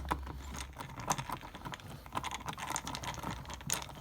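Phillips screwdriver backing a screw out of a plastic door trim panel: a run of small, irregular clicks and ticks.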